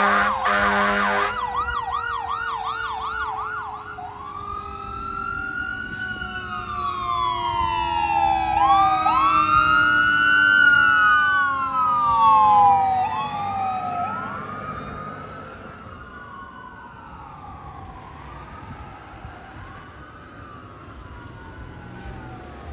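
Fire engine's air horn blasting, cutting off about a second in, then its siren in a fast yelp that switches to a slow rising-and-falling wail, two siren tones overlapping, with a lower tone sliding slowly down underneath. The sirens grow loudest around the middle and then fade as the engine moves away.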